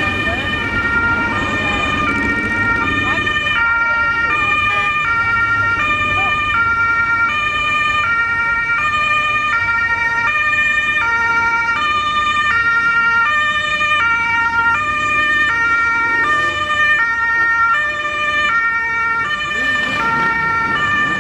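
Emergency vehicle's two-tone siren, switching steadily between a high and a low note about every half second, over the low rumble of vehicle engines.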